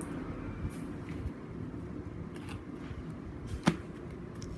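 Light handling noises of paper and colouring pens, with one sharp click about three and a half seconds in.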